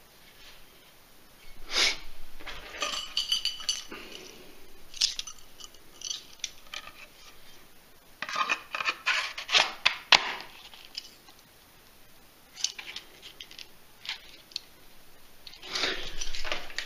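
Handling of a knife in a Kydex sheath and a pair of metal dog tags on a ball chain: scattered clicks, rubs and short ringing metallic clinks in several bursts, the busiest cluster about eight to ten seconds in.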